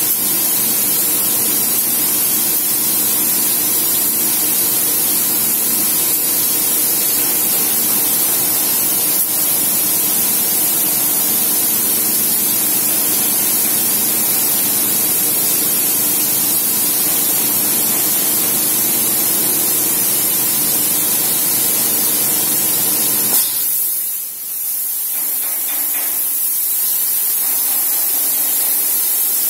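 High-pressure water jets from the nozzles of an automatic bike-wash machine's spray arch, hissing steadily over a motorcycle, with a steady low hum underneath. Near the end the low hum cuts off suddenly and a thinner hiss carries on.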